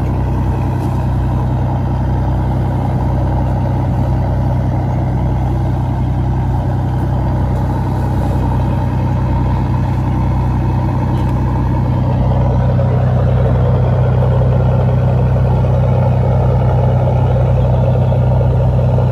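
Fishing boat's engine running steadily with a low hum, over the rush of water along the hull; it gets slightly louder about twelve seconds in.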